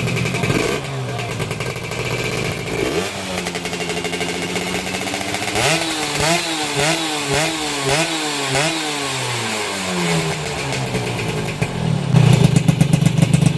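Yamaha F1ZR two-stroke engine, bored out to 124cc, running through an aftermarket RTX Super Premium expansion-chamber exhaust: idling, revved up, then a rapid string of throttle blips in the middle before settling back to idle, growing louder and rougher near the end. The exhaust note is what the owner calls crisp ("garing").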